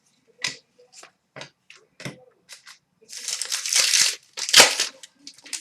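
A few light clicks and taps of trading cards being handled, then about two seconds of loud crinkling and tearing as a card-pack wrapper is ripped open.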